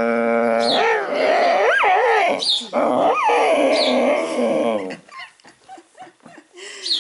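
A dog waking up and vocalising: a long held moan, then a run of rising and falling whines and squeaks lasting about five seconds, the drawn-out 'talking' of a dog stretching awake.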